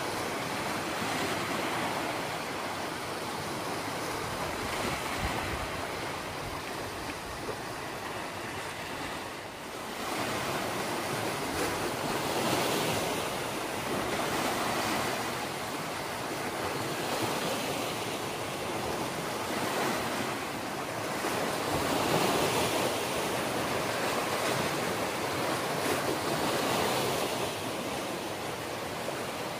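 Sea waves breaking and washing around rocks along a rocky shore, the surf swelling and easing every few seconds.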